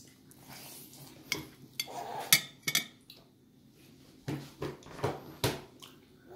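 A metal fork clicking and scraping against a plastic plate in a handful of separate, irregular taps as a toddler eats pasta.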